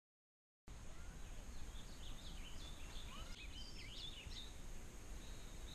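Songbirds chirping faintly, a quick run of short rising and falling notes and a held high note near the end, over a low steady rumble of outdoor ambience; it starts under a second in after silence.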